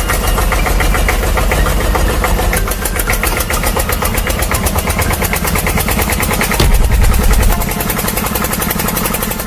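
An engine running with a rapid, even pulse. It briefly gets louder and deeper about seven seconds in.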